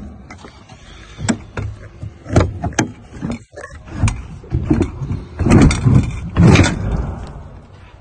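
Rear door of a Schmitz Cargobull refrigerated semi-trailer being unlatched and swung open: a series of metal clacks and clunks from the lock handle and locking bar, loudest in the second half.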